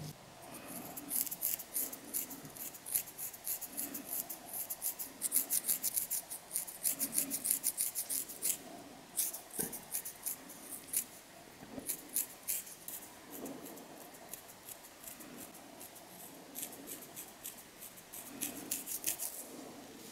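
Long fingernails scratching a dandruff-flaked scalp through the hair, giving crisp, close scratchy strokes in quick runs that pause now and then.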